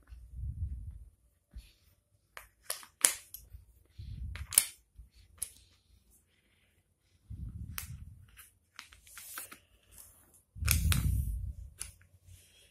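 Small wooden puzzle pieces clicking and clacking against each other and a wooden tray as they are picked up and fitted in, a scatter of sharp clicks. Four dull low thumps come in between.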